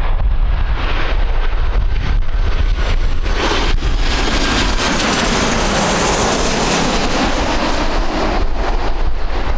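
Boeing 737-800's CFM56-7B turbofan engines on final approach, passing overhead. The jet noise swells from about three seconds in, is loudest and brightest near the middle, and fades as the aircraft moves away. A steady wind rumble on the microphone runs underneath.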